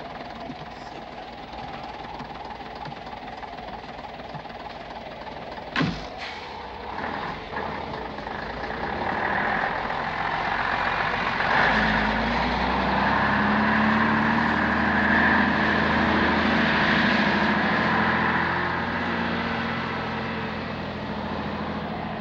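Vintage bus engine idling, with two sharp clunks about six seconds in. The engine then revs up and the bus pulls away, its sound growing louder and then fading near the end as it drives off.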